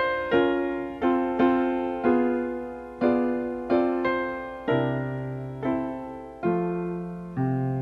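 Piano music: chords struck one after another, about one a second, each left to ring and fade, with deeper bass notes joining about halfway through.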